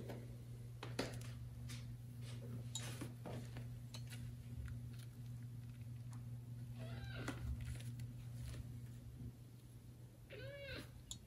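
Young kitten meowing twice, short high-pitched cries rising and falling in pitch, about seven seconds in and again near the end, over a steady low hum and scattered soft clicks.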